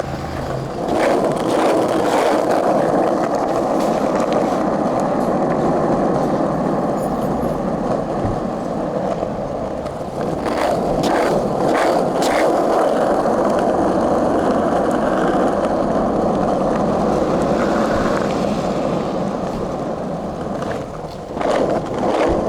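Skateboard wheels rolling steadily over smooth paving tiles, a continuous rolling noise with a few short clicks over the middle and near the end.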